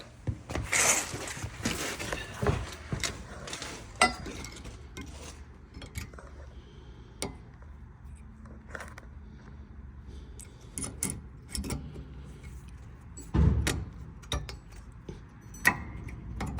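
Scattered light metallic clinks and scrapes of a brake pad and its spring clips being worked into a Toyota Sienna's rear caliper bracket, with a heavier knock a few seconds before the end.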